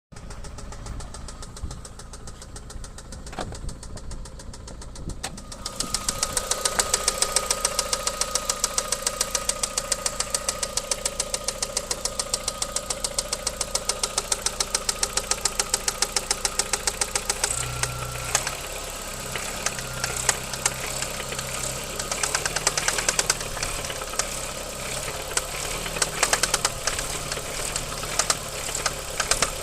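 VW Golf 4's 1.8-litre 20-valve AGN four-cylinder engine running with a fast, regular knock, a knock the owner says appeared after hard driving. The knocking gets much louder about six seconds in and comes less evenly in the last third.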